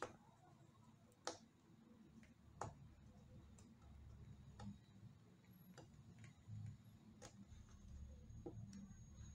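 Near silence with a low hum, broken by faint, sharp clicks about once a second, small contacts while handling the display and its adhesive tape strips.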